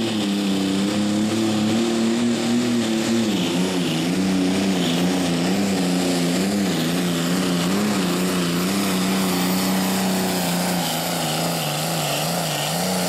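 Super stock diesel pulling tractor's engine running hard under full load while it drags the weight sled. The engine note wavers up and down, sags lower in the later part of the pull and climbs again near the end.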